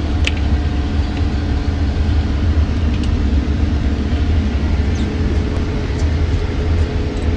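Steady engine and road rumble heard from inside the cabin of a moving passenger minibus, with a few faint clicks or rattles.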